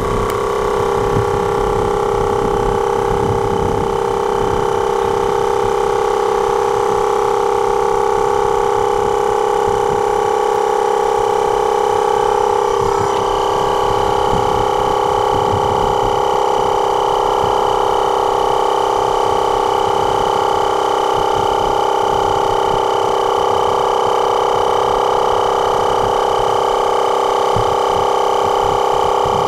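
Audew dual-cylinder 12-volt portable air compressor running steadily, a loud even drone of several fixed tones, as it pumps a car tyre up from about 15 PSI. Its tone shifts slightly about thirteen seconds in.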